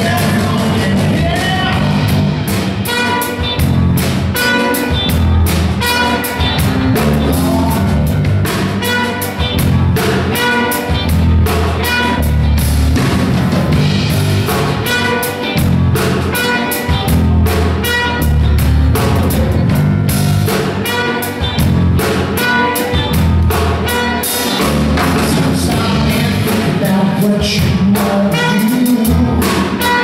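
Live funk band playing, with trumpet, drum kit, bass, guitar and keys together at a steady groove and no pause.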